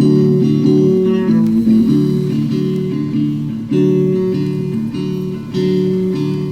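Guitar music without singing: plucked and strummed chords with changing bass notes, played from an early-1960s 45 rpm record.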